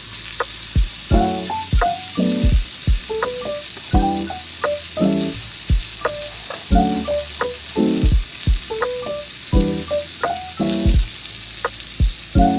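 Meat sizzling and frying in a pan, a steady hiss, under background music that repeats a short melodic phrase about every two seconds.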